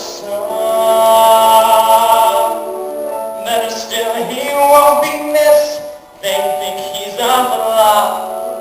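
Singing from a stage musical: voices holding long sung notes, with a brief break about six seconds in.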